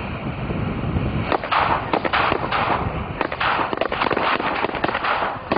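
A pack of Pyro Demon 'Bad Ass' firecrackers going off in a rapid, uneven run of sharp bangs. It starts about a second in and keeps going past the end.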